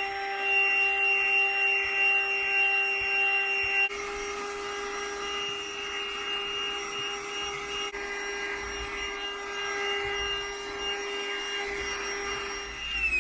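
Handheld cordless car vacuum cleaner running with a steady high whine, getting somewhat quieter about four seconds in; at the very end its motor winds down with a falling pitch as it is switched off.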